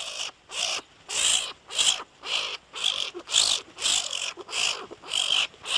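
An animal calling over and over: short, harsh, hissy calls, about two a second.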